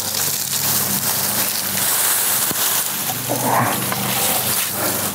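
Leafy shrub branches and twigs rustling and scraping against each other as a freshly cut branch is pulled out through the shrub, with a brief louder rustle about three and a half seconds in.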